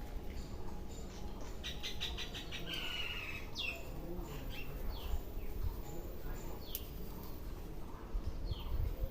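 Birds chirping in the background with a string of short, falling calls, over a low steady rustle of hands rubbing through hair during a head massage.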